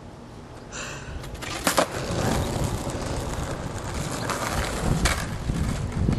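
Skateboard clacking on asphalt, a sharp clack about two seconds in and a fainter one near five seconds, over a steady rushing noise that grows louder from about two seconds in.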